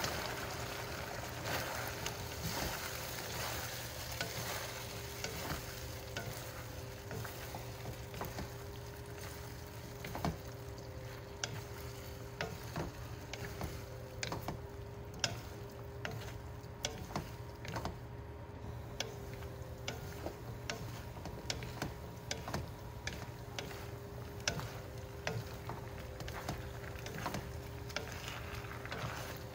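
Broccoli and sliced beef being stir-fried in sauce in a pan: a wooden spatula scrapes and knocks against the pan in many short clicks over a steady sizzle. A faint steady hum runs underneath.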